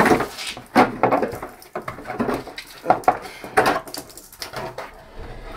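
Irregular clinks, knocks and rattles of hand tools and small metal fasteners being handled during work on a car's wheel-arch liner, about six or seven sharp strikes spread unevenly.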